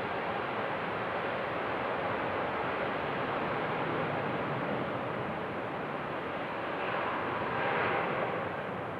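Jet airliner engines running, a steady rushing noise that swells briefly near the end.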